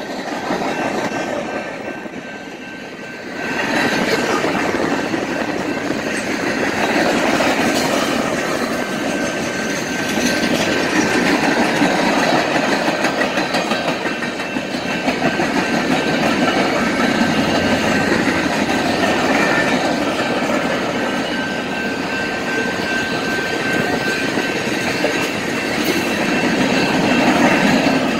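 A BNSF freight train of tank cars, boxcars and flatcars rolling past at a grade crossing: steady wheel and car rumble with the click of wheels over rail joints. The sound dips briefly a couple of seconds in, then comes back louder. A thin steady tone from the crossing signal's bell runs underneath.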